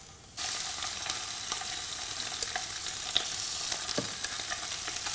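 Marinated fish sizzling as it is laid skin side down into a frying pan of hot canola oil on high heat; the sizzle starts suddenly about half a second in. It then holds as a steady hiss with scattered small pops.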